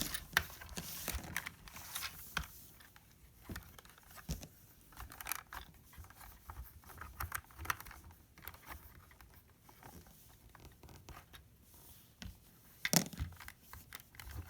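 LEGO bricks clicking, rattling and scraping as hands push, pull and twist the parts of a puzzle box, in scattered short taps with a sharper click near the end.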